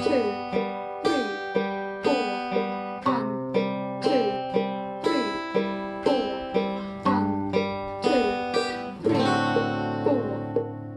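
Steel-string acoustic guitar playing a slow chord accompaniment, with a sharp attack about twice a second and the chord changing every two seconds or so.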